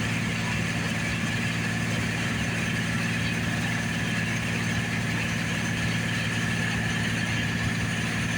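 John Deere 7700 combine running steadily, with a constant diesel engine hum and a steady high whine from the machinery over it.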